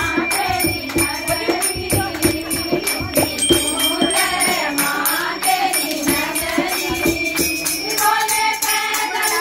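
A group of women singing a Hindu devotional kirtan bhajan in chorus, to a steady percussive beat.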